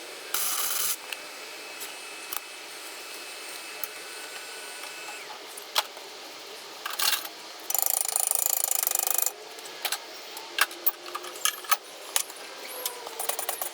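Wire-feed welder arc crackling in bursts as a corner joint is tacked and welded: a brief tack just after the start, a longer bead of about a second and a half past the middle, scattered sharp pops, then a fast sputtering run of pops near the end.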